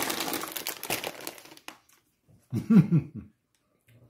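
A burst of crinkling and crunching as Herr's Carolina Reaper cheese curls are handled and bitten into, fading out after about a second and a half. About two and a half seconds in comes a brief, loud vocal sound from one of the tasters.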